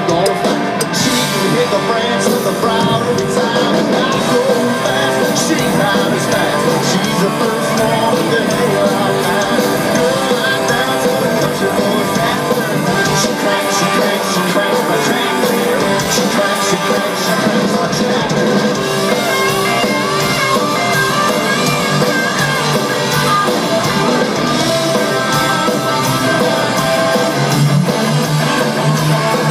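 Live country-rock band playing: electric guitars and drums, with a male voice singing.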